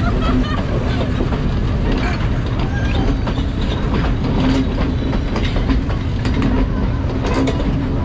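Train running over a railway bridge: a steady rumble and drone, with irregular wheel clicks over the rail joints. Voices can be heard alongside it.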